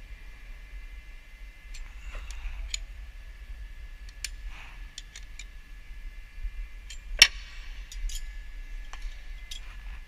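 Scattered sharp metallic clicks and taps from a spanner with a welded-on 14 mm hex bit working the transfer case fill/drain plug as it is tightened, with one much louder click about seven seconds in. A faint steady high-pitched hum runs underneath.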